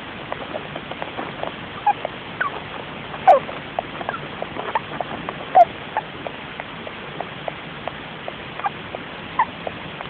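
Winter white Russian dwarf hamster making sleep sounds: a run of tiny irregular clicks and ticks, with a louder short squeak every few seconds.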